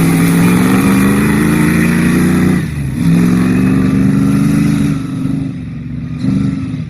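Off-road race buggy's engine accelerating hard: its pitch climbs, drops sharply at a gear change about two and a half seconds in, climbs again, then eases off near the end.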